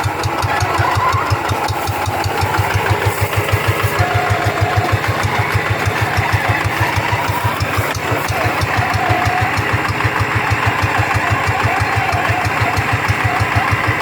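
Single-cylinder diesel engine of a two-wheeled paddy hand tractor running steadily with an even, rapid chugging.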